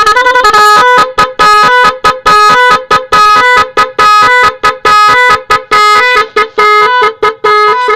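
Telolet multi-tone musical horn with snail-shaped trumpets playing a fast tune. Its short, choppy notes step up and down between a few pitches, with a few held longer.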